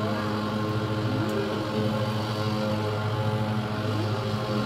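Steady low mechanical drone, a motor or engine running with several even, unchanging tones.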